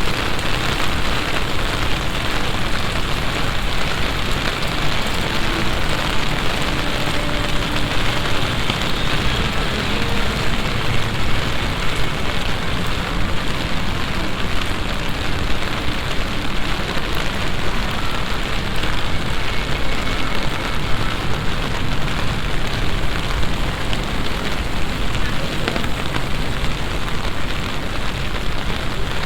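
Heavy summer downpour, a sudden passing shower, falling steadily in a dense, unbroken hiss.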